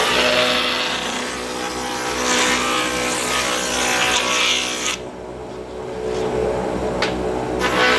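Bench router table's motor running steadily, with rushing spells of cutting noise as wood is fed past the bit. The noise drops to a lull about five seconds in, and there is a sharp click about two seconds later.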